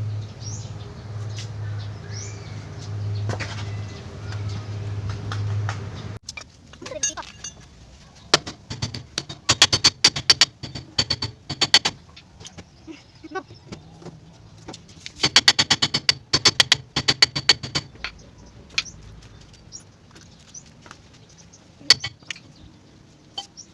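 Hammer blows on a Multicab's rear brake drum to knock the seized drum loose from the hub: two runs of rapid metallic strikes, each about three seconds long, with a few single knocks after them. A steady low hum with a pulsing beat runs for the first six seconds and then stops suddenly.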